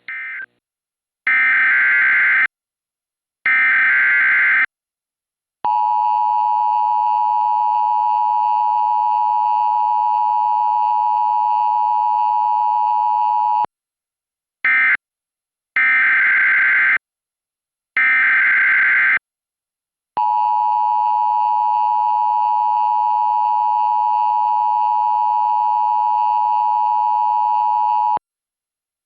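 Emergency Alert System tones. Two screechy digital header bursts are followed by the two-tone attention signal, held steady for about eight seconds. Then come another short burst and two longer header bursts, and a second eight-second attention signal.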